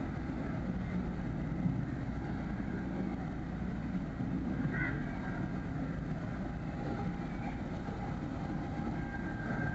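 Steady low engine rumble on the water, even throughout, with a faint high steady tone coming in near the end.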